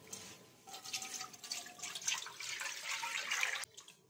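Water poured from a steel mug into a karahi pan, a splashing pour that starts just under a second in and stops about three and a half seconds in.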